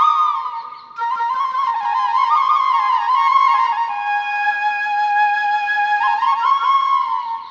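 Instrumental background music: a single melody line that glides and ornaments between notes, in phrases with a short break about a second in.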